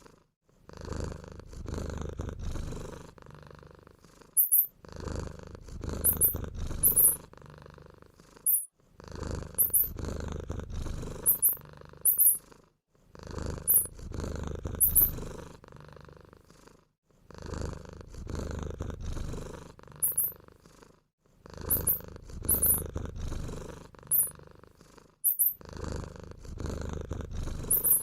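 A cat purring in a low, pulsing rumble that breaks off and starts again about every four seconds, like a looped track, with short, very high mouse-like squeaks several times in each cycle.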